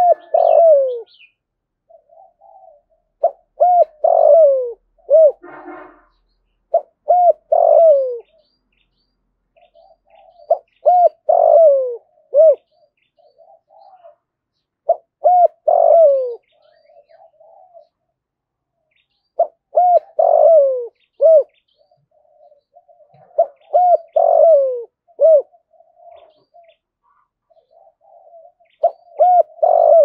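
Spotted dove cooing: a loud phrase of several hooting notes, each falling in pitch, repeated about every four seconds, with soft low murmuring notes between phrases. It is the challenge coo of a caged decoy bird, used to provoke wild doves.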